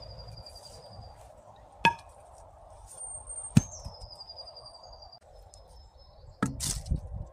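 A few sharp, isolated knocks spread through, the last a short clatter near the end, over a faint steady hiss.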